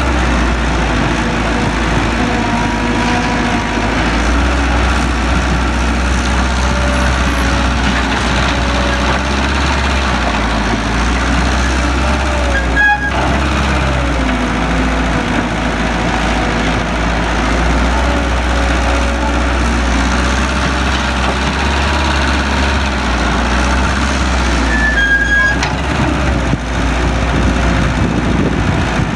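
Heavy construction machinery's diesel engine running steadily with a deep rumble, its pitch wavering slightly as it works. Two brief sharp clanks come through, one near the middle and one near the end.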